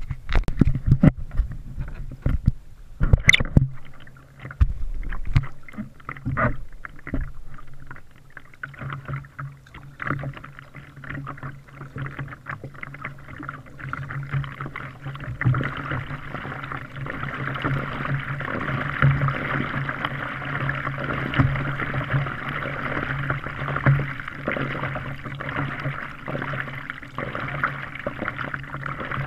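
Kayak paddling heard from a camera on the hull: sharp knocks and scrapes for the first several seconds as the boat works along the mangrove roots, then a steady rush and splash of water along the bow that swells with each paddle stroke.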